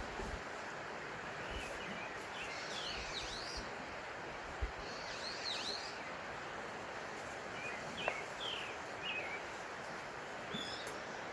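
Small birds chirping in short, quick calls scattered through, over a steady rushing background noise; a single sharp click about eight seconds in.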